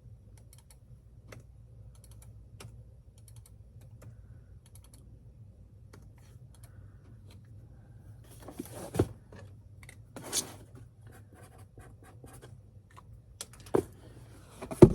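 Sparse typing on a computer keyboard over a steady low hum, with a couple of louder rustles in the second half and a sharp knock near the end.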